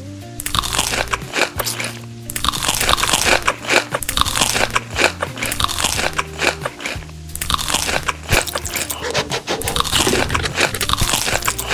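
Close-up crunchy biting and chewing of food, a dense run of crackling crunches that eases briefly twice, over background music.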